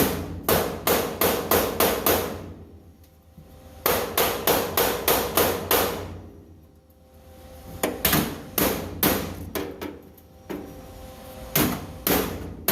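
Hammer blows on sheet steel in quick runs, about three a second, with pauses between the runs: a replacement Ford F100 floor pan being hammered down to close a gap.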